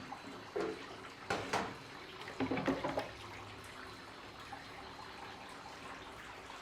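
Water being poured from a bucket into the top water tank of a metal-body air cooler, a steady pour and trickle with a few louder splashes in the first three seconds.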